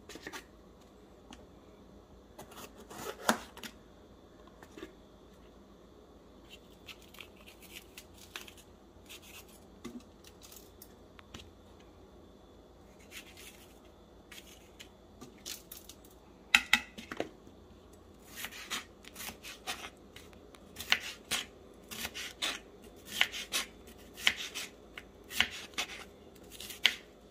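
Food being cut during kitchen prep: irregular sharp snips and clicks, sparse at first and coming more often in the last third.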